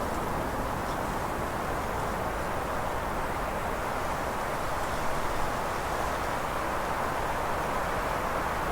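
Wind blowing steadily as a rushing noise with a low rumble underneath, swelling and easing slightly, with two brief gusts about five seconds in.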